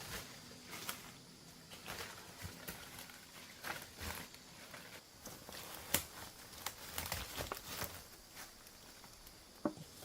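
Footsteps through forest undergrowth: irregular snaps of twigs and rustles of dry leaves, with one sharper snap about six seconds in.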